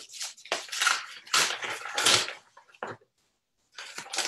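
Paper crinkling and rustling as a mailed envelope and the papers inside it are handled and opened, in a run of crackly bursts. There is a short pause about three seconds in, and the rustling starts again near the end.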